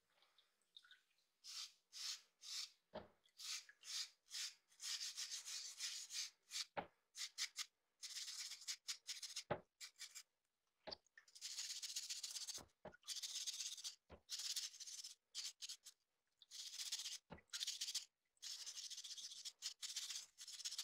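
A hand brush scrubbing a rusty hammer head in a plastic tub. It starts with quick rasping strokes, a couple a second, then moves into longer runs of fast scrubbing broken by short pauses, with an occasional sharp knock.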